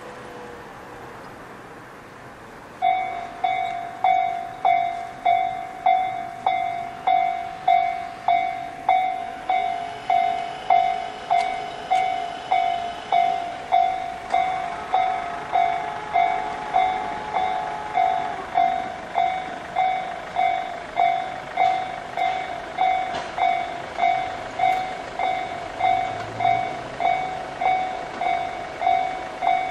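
Japanese electronic level-crossing alarm of the slow 'pon-pon' (Tojo-type) kind, starting about three seconds in: a mid-pitched chime struck over and over, each stroke fading, about three strokes every two seconds. It is the warning that a train is approaching the crossing.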